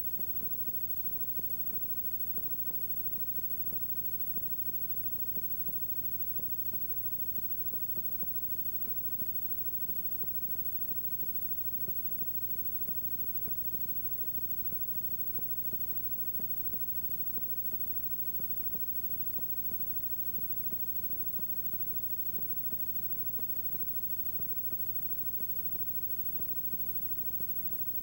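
Playback noise from a blank stretch of videotape: a steady hiss over a buzzing hum with many overtones, with frequent faint irregular ticks of crackle.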